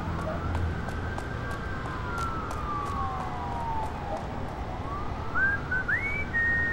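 City night ambience: a steady noise bed with a distant siren slowly wailing up and down. Near the end come a few short rising whistled notes, the last one held.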